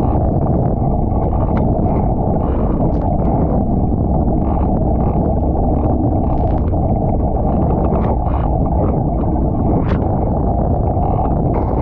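Steady rush of wind on the microphone and water hissing past the hull of an International 14 skiff planing at speed in strong wind, with a few brief splashes of spray, the sharpest about ten seconds in.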